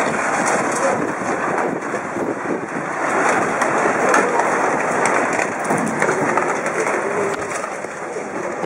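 Tsunami floodwater rushing and surging through a flooded town: a loud, steady rushing noise.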